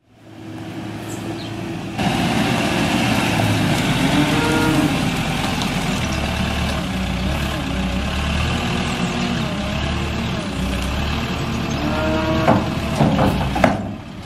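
Kramer wheel loader's engine running steadily under a wavering whine, while it works a hydraulic beet washer bucket. A few sharp knocks come near the end.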